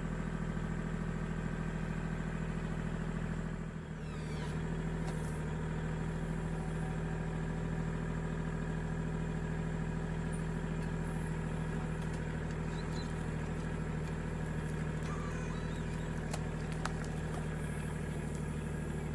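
Kubota L2501 tractor's three-cylinder diesel engine running steadily, dipping briefly about four seconds in, with occasional faint metallic clanks.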